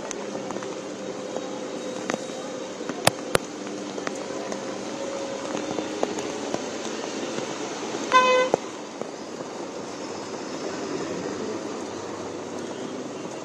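Steady hiss of heavy rain and street traffic on a flooded road. There are a couple of sharp clicks about three seconds in, and one short vehicle horn honk of about half a second a little past the middle.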